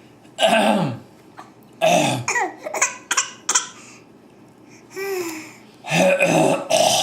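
Bouts of coughing traded back and forth, one voice copying the other's cough, mixed with laughter. A louder run of coughs comes near the end.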